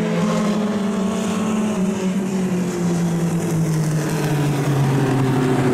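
Mini stock race car engines running on the dirt track, their pitch falling slowly and steadily as the cars wind down.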